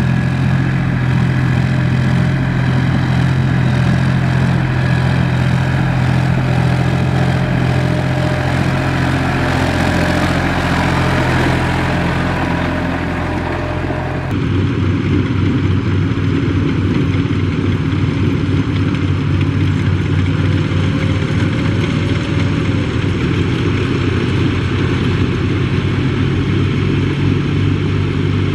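Farm tractor's diesel engine running steadily while pulling a trailer loaded with rice sacks through deep mud. The engine sound changes abruptly about halfway through.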